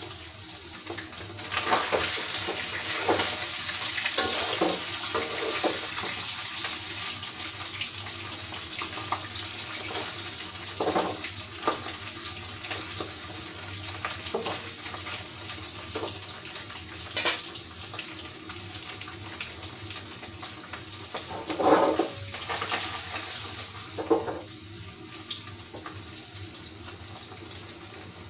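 Baim (spiny eel) fish frying in oil: a steady sizzle, with a few knocks of a utensil against the pan, the loudest about twenty-two seconds in.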